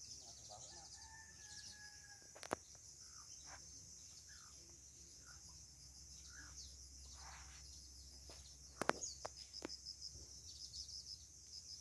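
Faint outdoor birdsong: short scattered bird calls over a steady high trilling of insects such as crickets. Two sharp clicks cut through, one a few seconds in and a louder one about three quarters of the way through.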